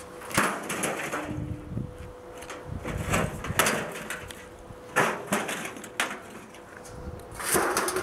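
Panasonic NN-S688WA microwave oven being smashed: a loud crash about half a second in as it hits the ground, then a series of knocks and clattering from its metal casing and broken parts as it is shifted and banged about, with a longer rattling clatter near the end.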